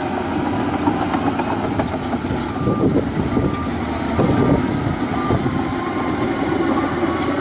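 Heavy diesel earthmoving machinery running steadily, a continuous low rumble with a faint high whine on top in places.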